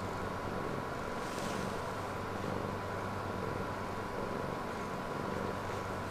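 Domestic cat purring steadily, a low continuous rumble.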